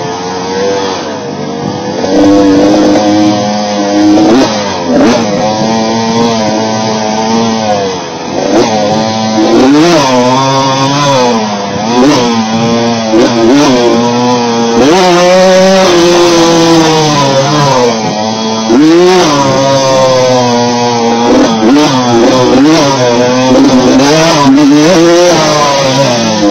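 Honda CR125 two-stroke dirt bike engine ridden hard on a trail, its pitch climbing and dropping back again and again as the rider works the throttle.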